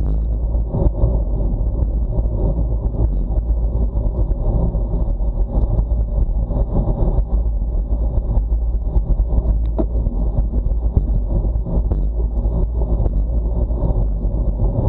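Steady low rumble of wind buffeting a bicycle-mounted action camera's microphone, mixed with the hum of road-bike tyres on asphalt at about 39 km/h, with a few faint clicks.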